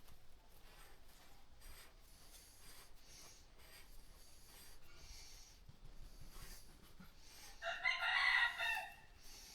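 A rooster crowing once, about eight seconds in, a loud pitched call lasting just over a second over a faint hiss.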